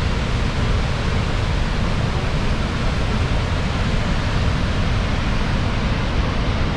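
Steady, loud rush of Niagara Falls' falling water, an even unbroken noise with a heavy low end.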